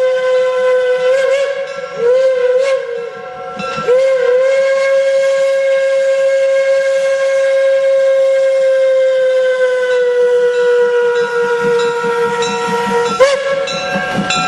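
Steam locomotive chime whistle, announced as Crossett Western No. 10, sounding a chord of several tones. It is blown in a long blast with two short breaks in the first few seconds, sags slightly in pitch, and is blown again near the end.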